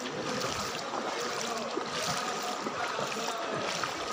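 Floodwater flowing across flooded ground in a steady rushing hiss, with faint voices in the background.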